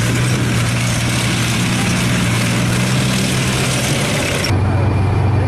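A heavy engine running steadily at idle, with a strong hiss over it. The high part of the hiss cuts off abruptly about four and a half seconds in while the engine keeps running.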